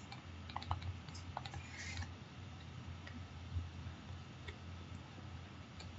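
Faint, scattered ticks and light clicks of a stylus tapping and writing on a tablet screen, over a steady low hum.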